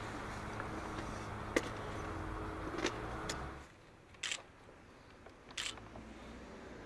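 Winter street ambience with a steady low traffic hum and a few sharp footstep clicks on the snowy pavement. It drops off suddenly to a quieter stretch with two short crunches, about a second apart.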